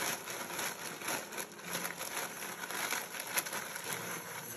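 Plastic bag of frozen shredded hash browns crinkling with irregular crackles as it is emptied into a mixing bowl.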